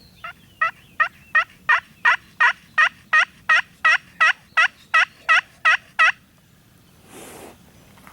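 Wild turkey yelping: a long, even series of about sixteen loud yelps, roughly three a second, which stops about six seconds in. A short rustle follows about a second later.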